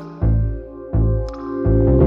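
Background R&B music: a synth-keyboard chord pad over bass hits about three-quarters of a second apart, in a short gap without vocals.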